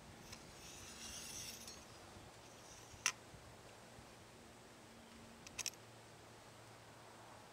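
Faint metal-on-metal sliding as an FX Impact X barrel liner is pushed into the rifle's outer steel barrel tube, with a single light click about three seconds in and a quick double click a couple of seconds later.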